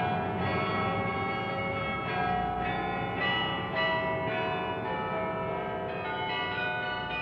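Russian church bells ringing: several bells of different pitch struck in turn about every half second, their tones overlapping and ringing on.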